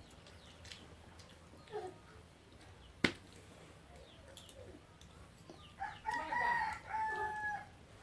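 Rooster crowing once, about six seconds in, for roughly two seconds and ending on a held note. A single sharp click comes earlier, about three seconds in.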